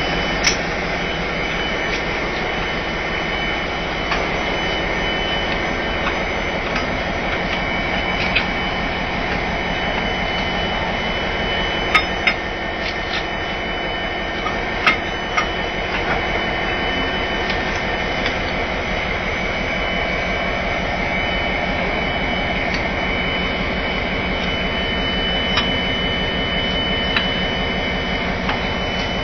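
Class 57 diesel locomotive's EMD two-stroke engine idling with a steady drone, with sharp metallic clanks now and then as the coupling shackle between the two locomotives is handled.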